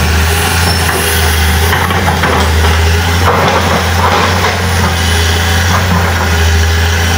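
Diesel engine of a 1995 Komatsu PC200-class excavator running steadily, a low even drone.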